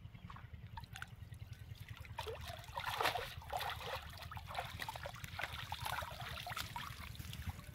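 Water splashing and dripping off a cast net as it is hauled up out of shallow water, loudest about three seconds in, then trickling off as the net drains.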